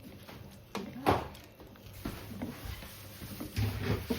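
A few sharp knocks and clatters of kitchen utensils against cookware, the loudest about a second in and a few more near the end.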